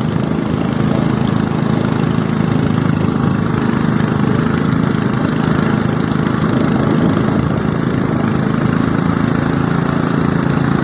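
Small wooden boat's motor running steadily while the boat is under way, an even drone that holds one pitch throughout.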